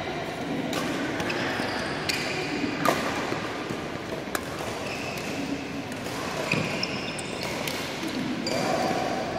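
Badminton racket strikes on a shuttlecock during a doubles rally: several sharp hits about a second apart, with short high squeaks of court shoes on the floor between them.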